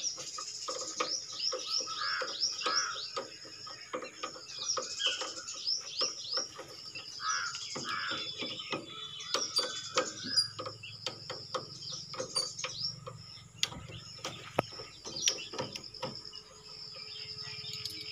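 Birds chirping in quick, repeated falling notes, over scattered sharp metal clicks and taps from a spanner working the clutch cable adjuster bolt on a power tiller's handlebar.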